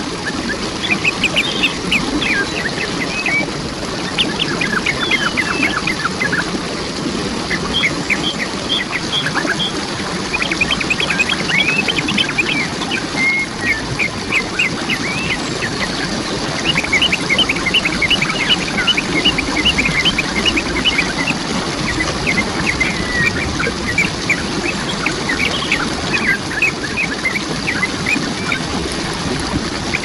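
Waterfall giving a steady rush of falling water, with birds calling over it in quick runs of short, high, repeated notes and trills.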